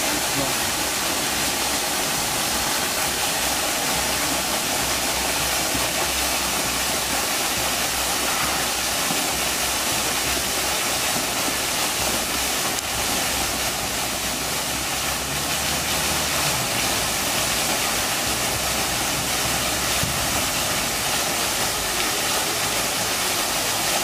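Steady rushing of water, an even hiss that holds at one level without a break.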